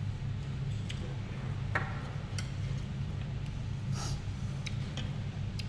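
Eating sounds at a table: scattered light clicks and taps of utensils against bowls over a steady low hum.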